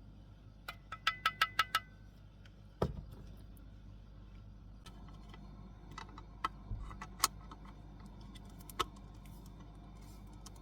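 A quick run of about seven light metallic clinks with a brief ringing, then a single dull thump, followed by a few scattered clicks and taps: small objects being handled.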